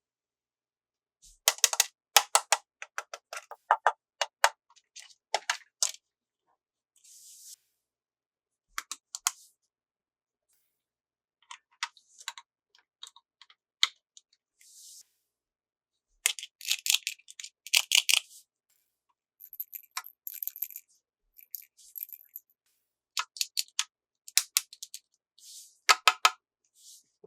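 Close-up handling of small plastic toy pieces and their packaging: clusters of sharp clicks and taps with a few short rustles, starting and stopping with pauses between.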